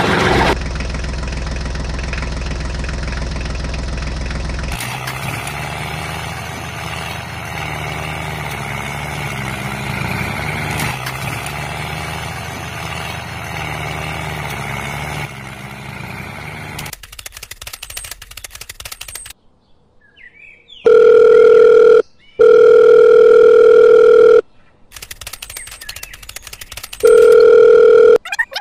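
A tractor engine running steadily for the first half, with a low hum. Then a telephone ring tone, three loud steady beeps of a second or two each in the last third.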